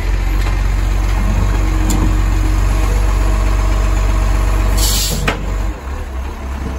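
Dennis side-loader garbage truck's engine and hydraulics running loud as the side arm lifts and tips a wheelie bin. A short hiss of air comes just before five seconds in, then a sharp knock as the bin is emptied at the top, and the engine drops back near the end.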